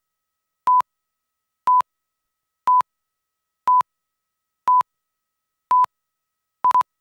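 Countdown-leader beeps on a commercial slate: a short, single-pitch beep once a second, six times, then two quick pips near the end, counting down to the start of the spot.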